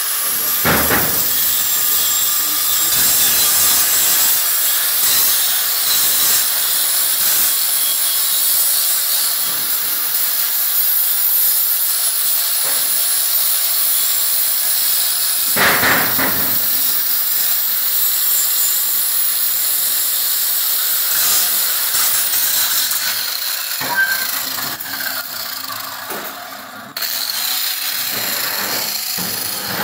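Angle grinder grinding the rough, torch-cut end of a square steel tube to deburr it: a continuous high-pitched grinding with a steady whine from the disc. Near the end the level sinks for a few seconds, then comes back up abruptly.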